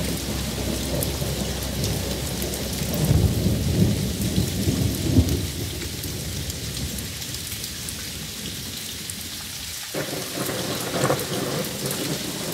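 Steady rain falling with rolling thunder, the rumbles loudest about three to five seconds in and again near the end.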